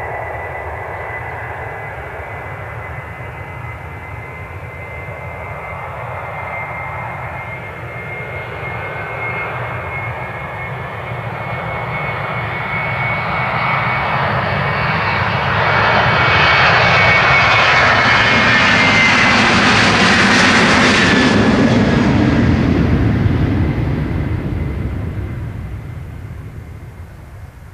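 Boeing 737-800's CFM56-7B turbofan engines at takeoff thrust through the takeoff roll: a steady high fan whine over a rumble. The sound grows louder as the jet rolls past about two-thirds of the way in, the whine dips slightly in pitch as it goes by, and then it fades as the aircraft lifts off and climbs away.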